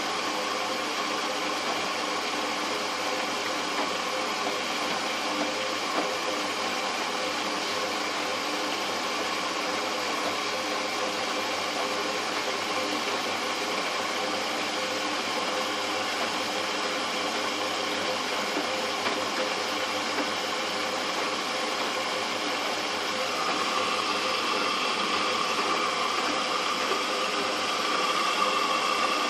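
Fagor front-loading washing machine running with a steady mechanical hum and hiss. It grows slightly louder, with a stronger whine, about 23 seconds in.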